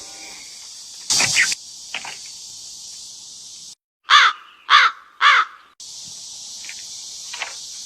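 Three loud, harsh crow caws about half a second apart, with a dead-silent gap around them as if edited in, typical of a comic 'awkward crows' sound effect. Under the rest lies a steady high hiss of night insects, with a brief noisy burst about a second in.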